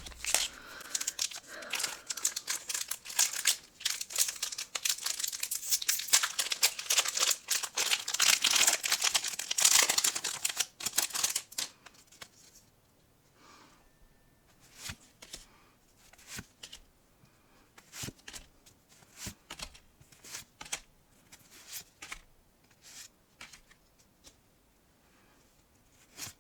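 Foil booster pack wrapper being torn open and crinkled, a dense crackling for about the first twelve seconds, followed by scattered soft clicks and slides of trading cards being handled.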